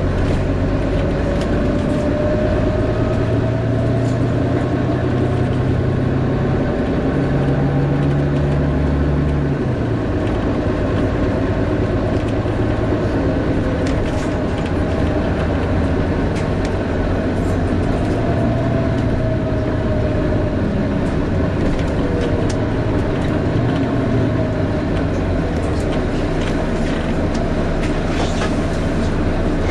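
Volvo B9TL double-decker bus heard from inside while driving: its six-cylinder diesel drones steadily, shifting pitch a few times in the first ten seconds. A whine glides slowly up and down above it, typical of the Wright Eclipse Gemini's 'hoover' cooling fan.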